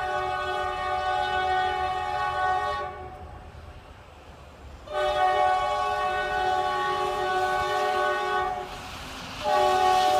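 The multi-chime air horn of a CSX EMD SD70MAC locomotive sounding a chord of several notes in long blasts. One blast ends about three seconds in, a second runs for about three and a half seconds, and a third starts just before the end, a pattern for a grade crossing.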